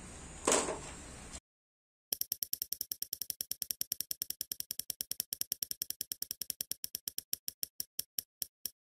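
A soft thump, then after a brief silence a spinning prize-wheel ticking sound effect: rapid clicks at about ten a second that slow steadily to a couple a second as the wheel winds down.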